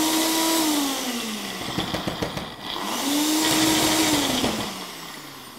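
Personal bullet-style blender run in pulses, its motor spinning up, holding and winding down twice.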